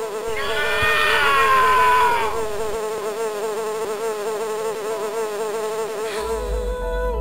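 A fly buzzing in one continuous drone, its pitch wobbling quickly up and down. It is loudest and brightest in the first two seconds.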